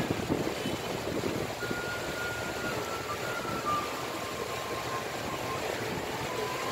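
River cruise boat under way, its engine running steadily under a constant rush of wind and water.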